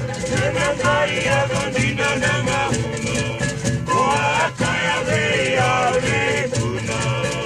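Background music with a quick, steady rhythm and a melody.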